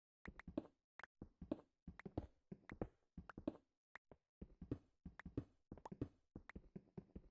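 A quick, irregular series of soft taps and knocks, about two to four a second, that stops near the end.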